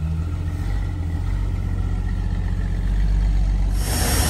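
1971 International Harvester Metro Mite van's engine idling steadily. Near the end the sound turns brighter, with more hiss.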